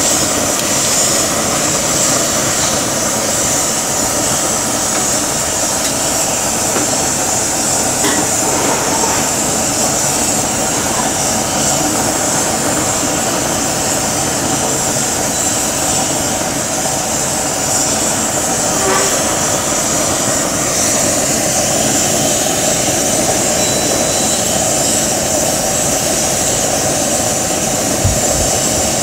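Marinated steak sizzling loudly and steadily in its juices on a ridged cast-iron grill pan over a gas flame, over a steady roar. A few faint clicks and a brief knock near the end as steel tongs touch the pan.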